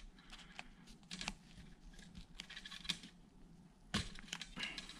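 Faint clicks and rustles of hands working a felt strip into a stainless steel trim piece, with a sharper click about four seconds in.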